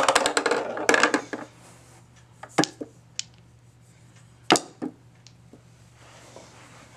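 Mini tabletop pool cue striking the cue ball, then balls knocking together: a few sharp clicks, the loudest about four and a half seconds in, after a short burst of handling noise at the start.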